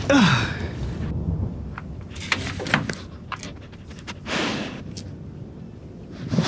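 A dog sniffing at a screen door, its nose against the mesh: a run of short sniffs, then a longer, louder exhale about four seconds in.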